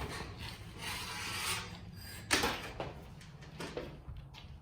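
Garage door hardware being handled and gathered: scraping and rubbing of metal parts, with one sharper knock a little past halfway.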